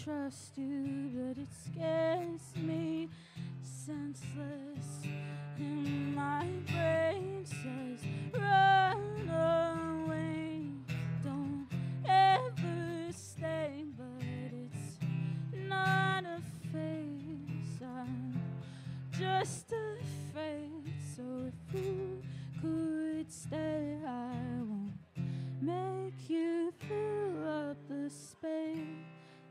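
Live solo music: a woman singing a slow melody over her own acoustic guitar.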